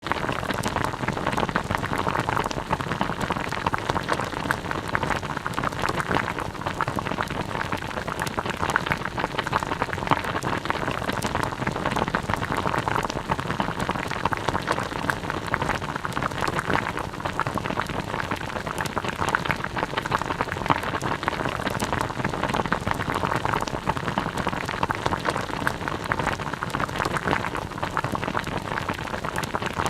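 A pot of food simmering at a boil: a steady, dense bubbling with many small pops.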